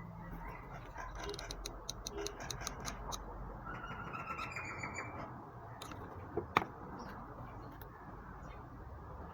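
A bird chirping in a short trill, over a steady low hum, with a run of small clicks and one sharper click.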